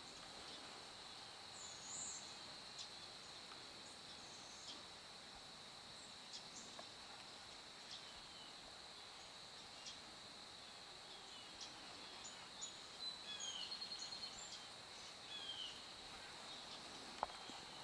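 Faint field ambience: a steady high insect drone, with short falling bird chirps that come more often in the second half and a few soft clicks.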